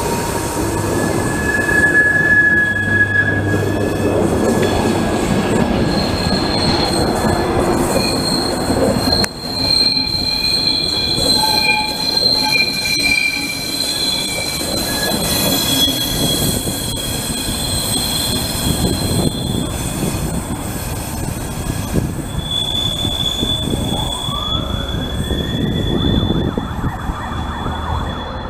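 Passenger train coaches rolling past on curved track, their wheels rumbling on the rails with long, high-pitched squeals from the wheel flanges. Near the end a tone rises over about two seconds and then holds.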